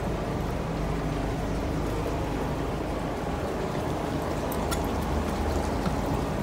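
Twin inboard engines of a 2001 Carver 444 motor yacht idling cold in gear, a steady low rumble, with water churning and splashing at the stern. A few small clicks near the end.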